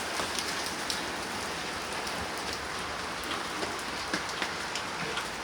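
Steady rain falling, with a continuous hiss and scattered drops pattering on surfaces.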